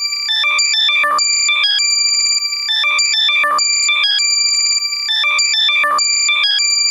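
Loud, compressed electronic alert sound for locating lost AirPods: high-pitched beeps and quick chirps alternating with held steady tones, repeating in a loop about every two and a half seconds.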